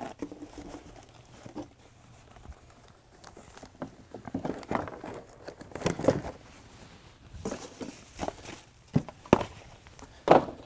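Plastic bags and packing crinkling as parts are handled, with a few separate knocks and thuds as items are set down, loudest about six seconds in and again near the end.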